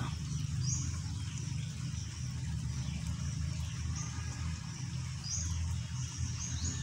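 Outdoor ambience: a steady low rumble with short, high bird chirps now and then, and a quick run of chirps near the end.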